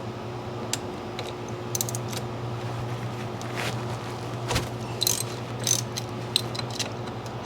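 Ratchet wrench with an 8 mm socket clicking in short, irregular bursts as it loosens the brake pad hanger pin bolt on a motorcycle's rear brake caliper, over a steady low hum.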